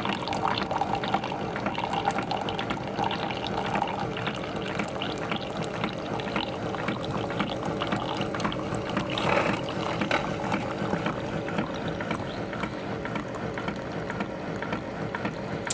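Keurig Hot 2.0 K425 coffee maker running its hot-water rinse cycle: the pump hums and rattles steadily while water gurgles and pours through into the cup below.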